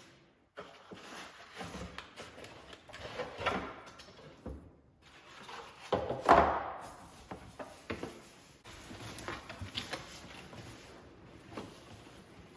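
Cardboard box and packaging being handled while a coffee maker is unboxed: irregular scraping, rustling and light knocks, with one louder scrape about six seconds in.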